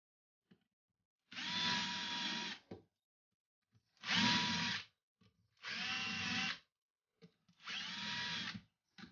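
Drill/driver boring holes in a wood plank with a twist bit, in four separate bursts of about a second each, the motor whining steadily while it runs and stopping between holes; a fifth burst starts right at the end.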